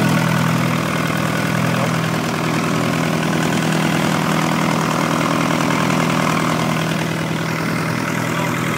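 MG ZR turbo's freshly rebuilt forged engine idling steadily just after its first start.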